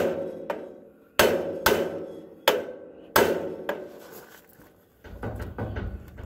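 Hammer striking a steel punch set on a seized garden-tractor steering spindle, about seven blows in the first four seconds, each ringing out metallically, to drive the frozen spindle out of the front axle. Some softer handling noise follows near the end.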